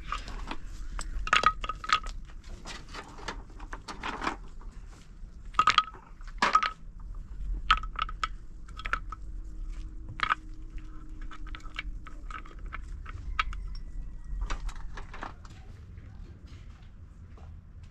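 Hollow concrete blocks being handled and set in place: irregular sharp clinks and knocks, some ringing briefly, loudest around six to seven seconds in.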